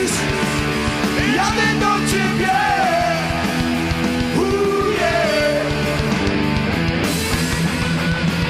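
Loud rock music in a punk or heavy rock style, with a melody line bending up and down over a steady, dense backing.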